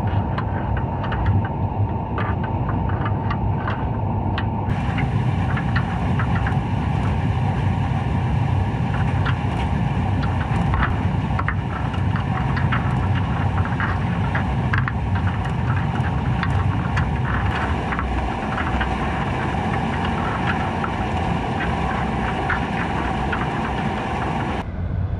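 Underwater sound at a crab trap: a steady low rumble of vessel engine noise carried through the water, with a faint steady whine, and many scattered sharp clicks and ticks.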